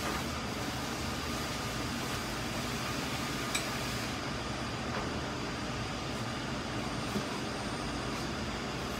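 Steady rushing roar of kitchen equipment at a working tandoor oven, with a light click about three and a half seconds in.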